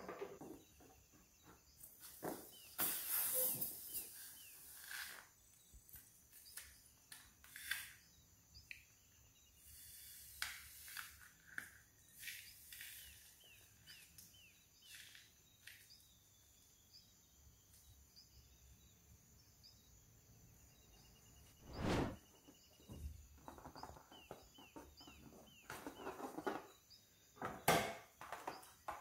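Hands handling stuffed balloons: scattered rustles, clicks and taps as the filling is pulled out into a plastic bowl and the next balloon is picked up, with a couple of sharper knocks near the end.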